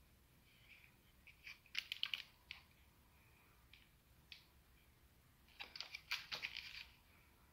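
Handling noise from an airsoft AR15 replica and its 3D-printed stock: two flurries of light clicks and taps, one about two seconds in and another about six seconds in.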